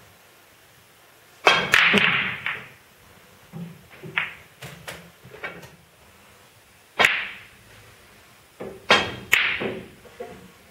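Snooker balls clicking as the cue strikes the white and balls knock into one another. There is a quick run of sharp clicks about one and a half seconds in, a single loud click near seven seconds, and another run of clicks around nine seconds.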